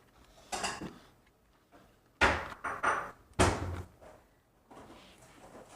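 Knocks and clatter from a model train locomotive being handled and set onto its track: four sharp knocks over about three seconds, the later ones loudest.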